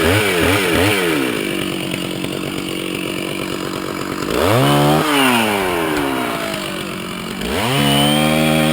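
Chainsaw engine sound idling and revving: a few quick revs in the first second, a steady idle, a rev up and back down about four and a half seconds in, and another rev held near the end.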